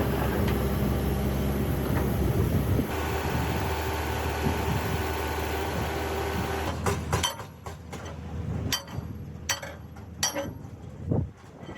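Heavy machinery running with a steady low drone, which drops away about seven seconds in, leaving scattered metallic clicks and knocks.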